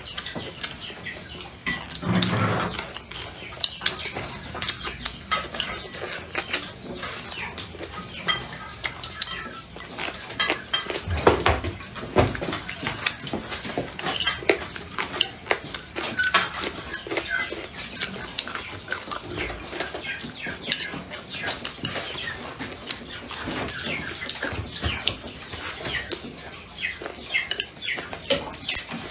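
Close-up eating sounds: chopsticks clicking and scraping against a bowl, mixed with chewing of food.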